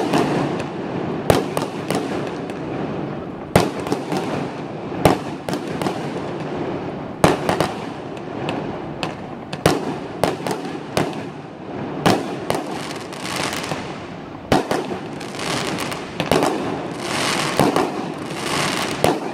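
Fireworks going off: many loud, sharp bangs at irregular intervals, roughly one every second or two, over a continuous wash of noise.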